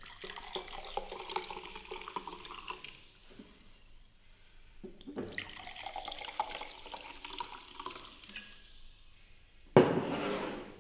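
Water poured from a glass bottle into drinking glasses, in two pours one after the other, with the splash and gurgle of the liquid filling each glass. Near the end a sudden loud thump breaks in and fades out.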